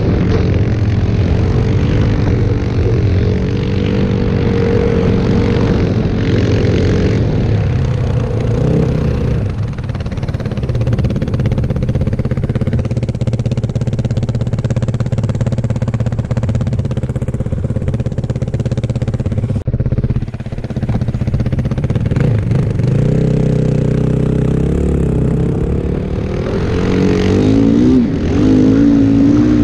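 Yamaha WR450F snowbike's single-cylinder four-stroke engine running under load through powder, its pitch rising and falling with the throttle. It drops off briefly about two-thirds of the way through, then revs up and gets louder near the end.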